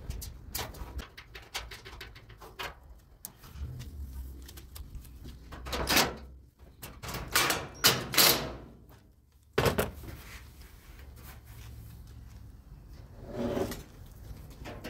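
Clicks, knocks and sliding scrapes of a clothes dryer's panels and parts being handled during reassembly, with a few louder scraping bursts about halfway through.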